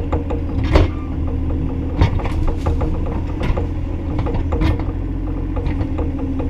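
Bobcat E35i compact excavator's diesel engine running steadily under work, with irregular sharp metallic knocks and clanks every second or so.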